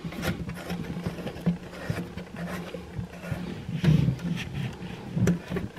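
Plastic thumb-wheel lock nut of a Fluidmaster 400 fill valve being spun by hand up the valve's threaded shank against the underside of a toilet tank: scattered light clicks and rubbing, with a couple of firmer knocks near the end, over a steady low hum.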